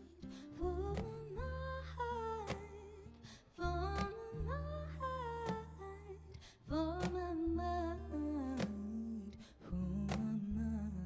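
Small acoustic jazz-soul band playing live: a woman sings a gliding melody over double bass notes, acoustic guitar and sharp cajón hits.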